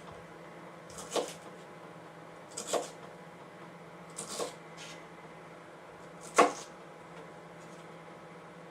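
A kitchen knife chopping through a bundle of celery sticks onto a cutting board: four separate crunching cuts, about a second and a half apart, the last the loudest.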